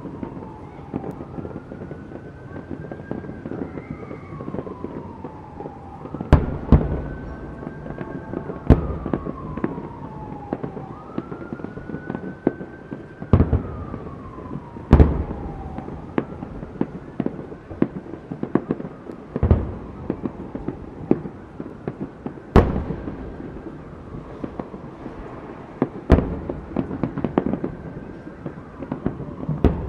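Aerial fireworks shells bursting in a big display: a string of sharp booms several seconds apart over a steady rumble and crackle. A siren wails in the background, rising and falling about every four seconds.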